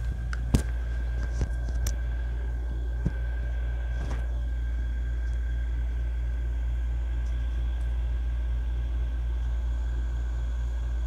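Metal ladle clinking lightly against an aluminium pot a few times in the first three seconds, the loudest about half a second in, over a steady low hum that runs throughout.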